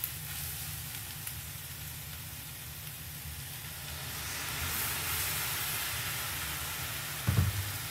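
Shredded beef and chorizo sizzling in a frying pan, the hiss swelling about halfway through as blended tomato-chipotle salsa is poured into the hot pan. A short low knock near the end.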